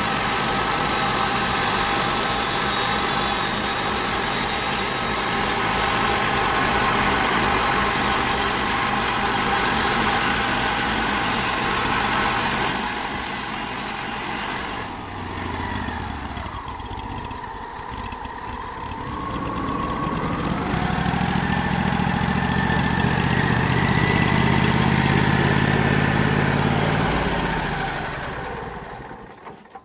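Engine-driven bandsaw mill running with the blade cutting through a yew log, a loud steady hiss over the engine. About halfway the cutting hiss stops suddenly and the engine keeps running, rises for several seconds, then winds down and shuts off near the end.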